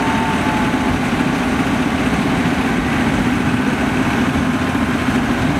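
Small diesel locomotive of a narrow-gauge forest railway running steadily under way, heard from the passenger car: a constant low engine drone.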